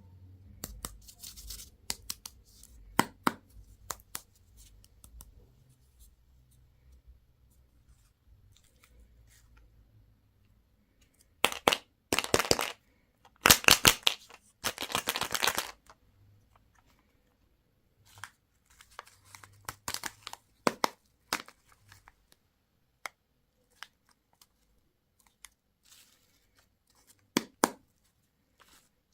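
Packaging being torn open by hand: two loud stretches of tearing near the middle, with scattered small clicks and taps of handling before and after.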